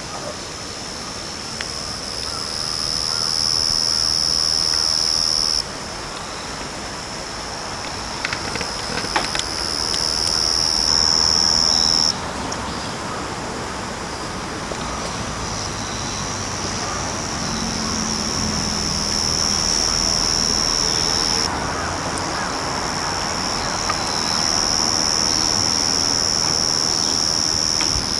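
Yachisuzu (Pteronemobius ohmachii), a small ground cricket, singing: a high, steady trill held for several seconds at a time. Each trill starts and stops abruptly, with short pauses between them.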